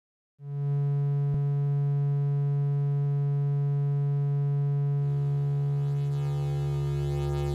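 Modular synthesizer signal through an Arkan voltage polarizer: a steady low electronic tone that starts a little way in. About five seconds in, as the knob is turned, it turns buzzier, with added overtones and a low rumble, the signal being driven into distortion. There is a faint click about a second in.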